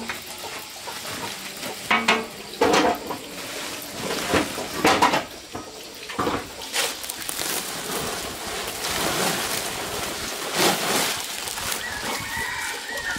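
Water splashing with irregular knocks and clatter. A rooster starts crowing near the end.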